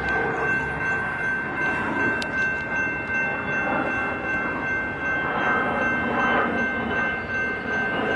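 Freight train passing with a steady rumble and rattle of cars, over which a thin, high-pitched tone holds without a break.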